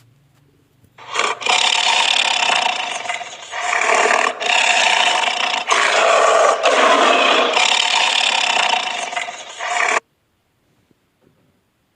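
An animal's call, harsh and noisy, swelling and fading several times over about nine seconds, then cutting off suddenly.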